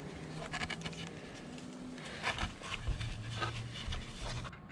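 A wooden 2x4 being pressed and shifted on a skateboard deck's grip tape over foil-taped wiring, test-fitting the routed wire channel: irregular scraping, scratching and light knocks.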